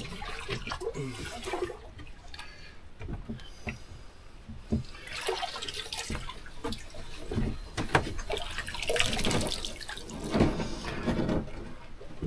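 Water splashing and sloshing, with scattered irregular knocks, heaviest in the middle and near the end.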